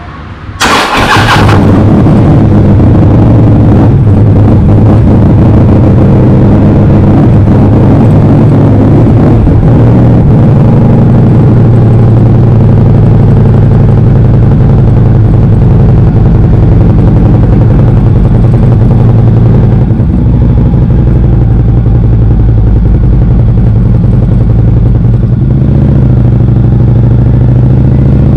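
2015 Harley-Davidson CVO Street Glide's Twin Cam 110 V-twin engine starting up about a second in, then running steadily and loudly. Near the end the bike is rolling away at low speed.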